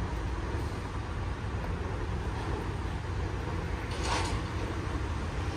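Steady low rumble of freeway traffic, with a short hiss about four seconds in.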